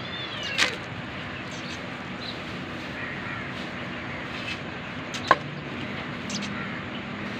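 A weak kitten gives a short, thin mew near the start over a steady low background hum. A single sharp click about five seconds in is the loudest sound.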